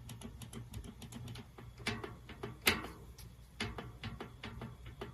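Bicycle rear cassette and freehub turning: a rapid run of ratcheting clicks, with two louder clunks about two and three seconds in. The rattle is from a loose cassette whose lockring is not tightened enough, so the sprockets have play.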